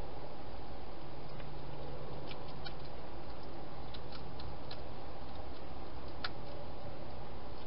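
A European hedgehog eating at a dish inside a plastic feeding box: a few small sharp clicks of chewing and nosing at the food, scattered over a steady hiss.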